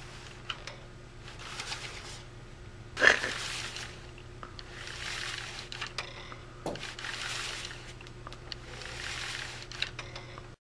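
Cloth shade fabric rustling and swishing as it is gathered and pulled by hand, in repeated swishes about every two seconds with small clicks between them. A sharp knock about three seconds in is the loudest sound; a steady low hum runs underneath, and everything cuts off suddenly near the end.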